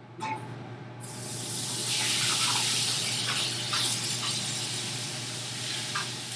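Beef sizzling in smoking-hot oil in a skillet: a loud frying hiss that starts about a second in, swells, then eases a little, with scattered spits and pops.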